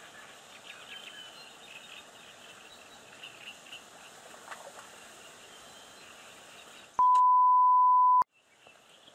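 A loud, steady single-pitch censor bleep lasting just over a second near the end, with the rest of the sound cut out around it. Before it, faint outdoor background noise with a few faint bird chirps.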